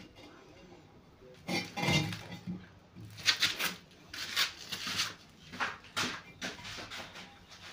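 Ceramic wash basin being handled, knocking and clinking against hard surfaces: a dull bump about two seconds in, then a run of sharp knocks over the next few seconds.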